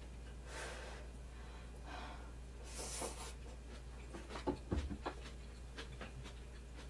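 Quiet eating sounds: a few soft breathy sips at a hot bowl of miso soup, then light clicks of chopsticks and a dull knock a little under five seconds in as the bowl is handled and set down on the table.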